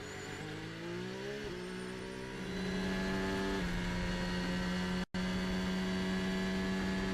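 Formula 1 car's turbocharged V6 hybrid engine at speed: the engine note rises through a gear early on, then holds a steady high pitch under full power. The sound cuts out for an instant about five seconds in.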